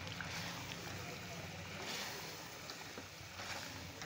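Chicken pieces cooking in water in a pan on the stove, with a steady hiss over a low hum and a few faint pops.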